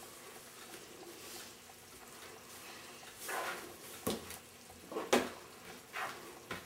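Cooking utensil noises: a short rustling shake, then a handful of sharp knocks and clinks as a metal spoon strikes a frying pan and spice containers are set down on the counter.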